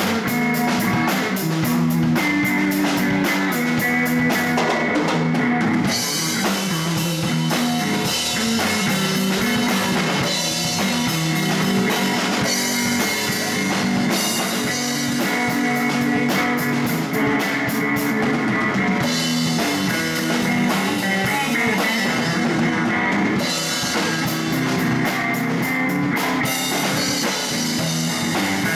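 Live blues band playing an instrumental passage: electric guitar over bass guitar and a drum kit keeping a steady beat with cymbals.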